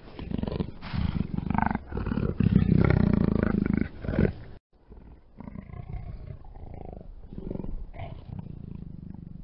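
A panther (big cat) roaring and growling: a loud, rough stretch of roaring that cuts off abruptly about four and a half seconds in, followed by quieter growling.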